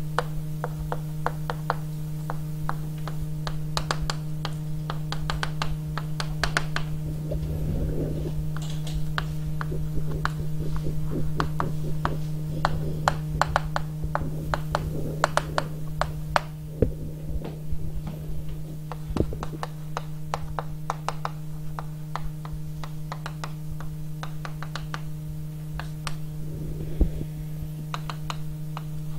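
Steady electrical mains hum, with irregular small clicks and taps scattered throughout and a few soft handling bumps.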